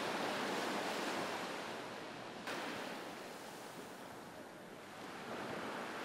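Heavy ocean surf whipped up by a passing hurricane, a steady rush of breaking waves that swells and fades. The sound changes abruptly about two and a half seconds in.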